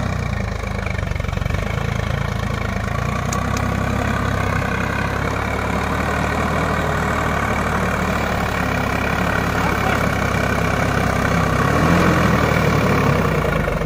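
Swaraj 744 XT tractor's three-cylinder diesel engine running steadily under load while it pulls a trolley loaded with stones over rough field ground. The engine grows a little louder as it draws near, and about twelve seconds in the engine note briefly rises and falls.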